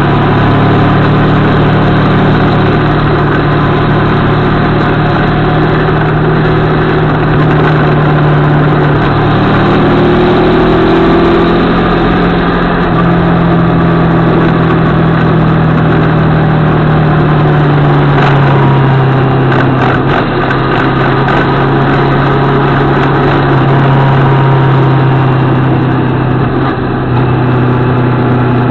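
CFMOTO 650MT motorcycle's parallel-twin engine running while riding, heard from a camera mounted on the bike, its note shifting up and down in pitch with the throttle through a series of bends.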